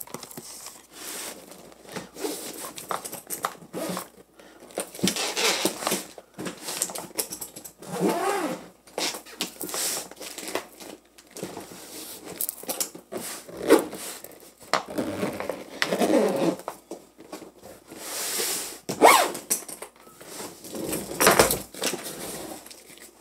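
Clothes and fabric rustling as a hard-shell suitcase is packed, with irregular rustles and sharp knocks from its plastic shell as the lid is pressed shut and the case is handled.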